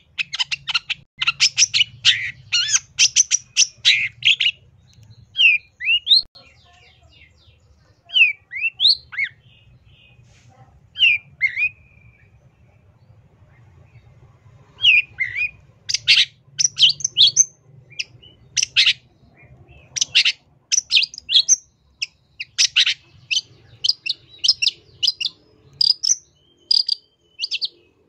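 Long-tailed shrike (cendet) singing: fast runs of sharp chattering notes, broken about five seconds in by a spell of single rising and falling whistled notes, then rapid chattering again from about fifteen seconds in.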